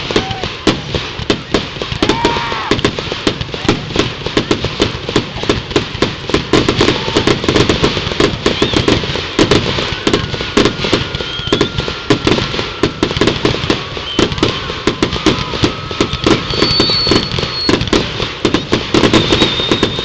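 Ground-launched fireworks firing a rapid, unbroken string of sharp pops, many each second, with crackle between them.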